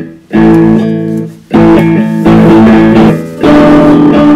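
Electric guitar played through an amplifier: chords struck about once a second and left to ring, with short breaks between them.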